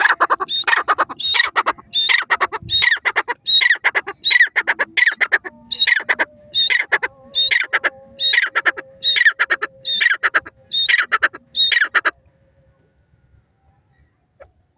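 Grey francolin calling: a long, loud run of short repeated call notes, about two a second, that stops about twelve seconds in.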